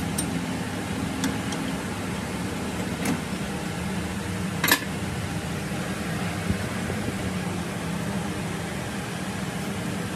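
Steady low machine hum of a lathe workshop, with a few light metal clicks and one sharper metallic knock a little under halfway through, as a machined piston is handled in and out of the lathe's four-jaw chuck.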